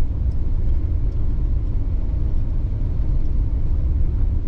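Camper van driving along at a steady pace, its engine and road noise making a constant low rumble.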